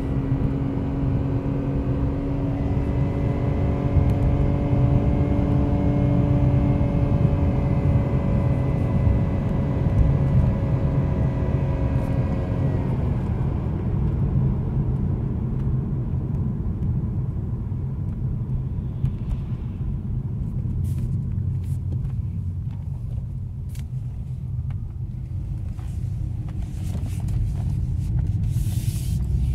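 BMW E46's M54 straight-six engine heard from inside the cabin, held at high revs under load, then the engine note drops sharply about thirteen seconds in as the revs fall, leaving lower engine and road noise. This is high-rev 'Italian tune-up' driving meant to free piston rings thought to be stuck, the suspected cause of the engine burning oil.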